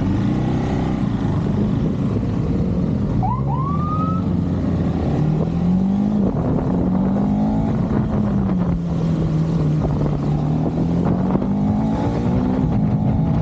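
KTM 390's single-cylinder engine under way, its pitch climbing, dropping suddenly about six seconds in as with a gear change, sagging, then climbing again, over a steady rush of wind and road noise. A brief rising whistle-like tone sounds about three seconds in.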